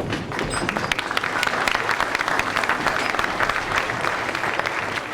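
Audience applauding: many hands clapping in a dense, steady patter that starts just after the scene announcement ends.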